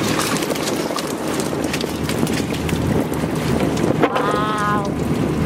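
Fishing trawler's engine running steadily on deck, with wind on the microphone. A short high-pitched call comes about four seconds in.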